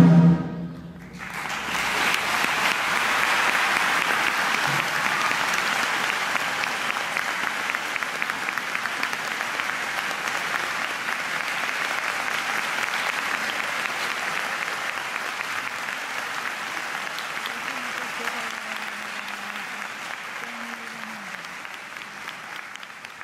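An orchestra's final chord cuts off in the first half-second, then an audience applauds steadily, slowly fading toward the end.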